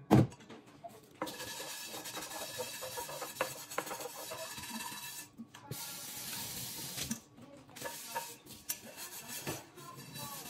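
A knock at the very start, then scrubbing: a steady rasping rub in long stretches with two short breaks and occasional small clicks.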